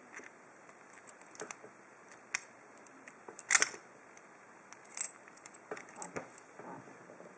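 Lock picking: a hook pick and tension wrench working in the keyway of a Lockwood 301/63 padlock, giving irregular small metallic clicks and scrapes, the sharpest about three and a half seconds in.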